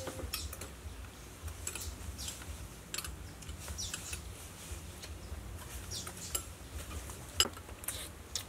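Scattered light clicks and clinks of metal spoons against a serving plate and small glass bowls while eating.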